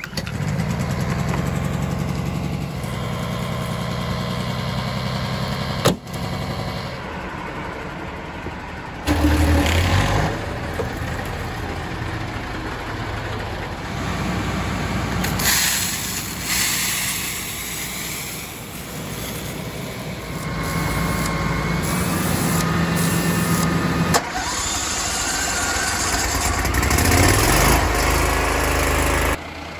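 Small petrol engines on fire-service equipment being started and left running, one machine after another with abrupt changes between them. The first is a portable red power unit; near the end it is the fire truck's built-in generator.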